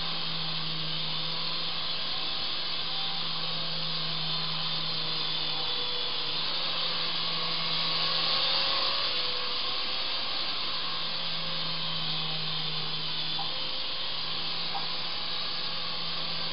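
Syma S109 mini R/C helicopter's small electric motors and rotors whirring in flight: a steady airy whine with a low hum that briefly drops out a few times and a pitch that wavers as the throttle changes. It gets a little louder about halfway through.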